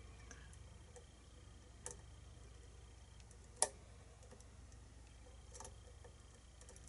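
Small metallic clicks of a lock pick working the pins of a pin-tumbler challenge lock on a Schlage keyway: three faint ticks, the sharpest a little past halfway.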